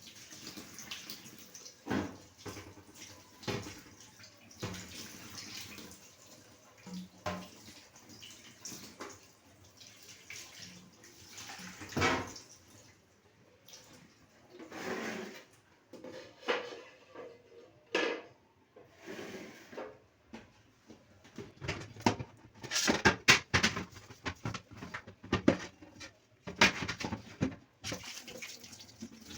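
Fridge shelves and holders being washed by hand in soapy water: irregular splashing and scrubbing, with sharp knocks and clinks as the pieces are handled, coming thick and fast in the last third.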